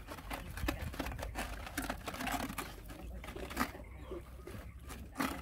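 Dogs eating wet food from a shared bowl: lapping and chewing with a rapid, irregular run of small clicks and wet smacks.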